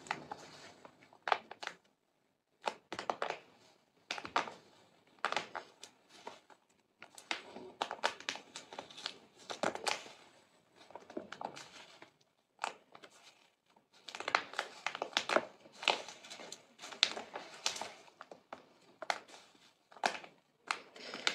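Soft, irregular crackling and clicking, in scattered short bursts with brief silent gaps between them.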